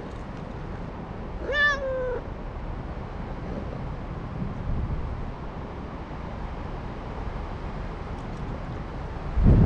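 A stray cat meows once, about a second and a half in: a single call of under a second that jumps up in pitch, then holds and sags slightly. Steady low wind noise runs underneath, and a burst of low rumbling noise comes in just before the end.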